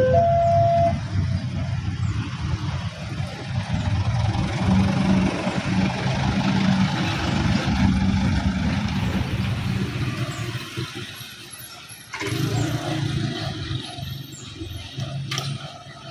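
A two-tone horn sounds and stops about a second in. A heavy diesel engine then runs loudly as a train goes by, fading after about ten seconds. Near the end, another engine comes in suddenly.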